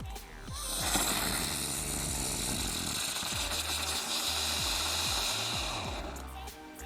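Small consumer firework giving off a dense, rapid crackle that starts about half a second in and dies away after about five and a half seconds, over electronic background music.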